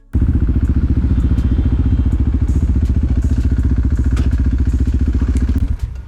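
Motorcycle engine running loud and steady with a fast, even pulse, then dropping away sharply near the end.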